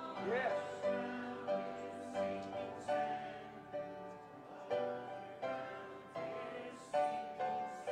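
Church organ and piano playing a hymn, with chords struck in a steady beat, each fading before the next.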